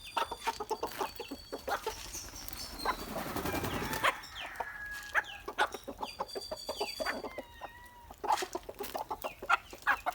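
Young broiler chickens peeping, a run of short falling high calls mixed with sharp clicks. There is a rustling burst, like wings flapping, about two to four seconds in.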